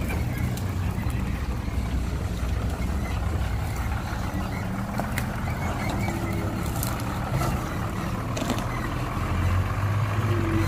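Hyundai dump truck's diesel engine idling steadily, its low note growing louder near the end.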